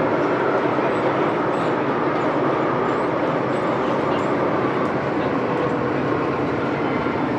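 MTR Tsuen Wan line M-Train (Metro-Cammell electric multiple unit) running through the tunnel, heard from inside a car by the door: a loud, steady rush of wind and wheel noise.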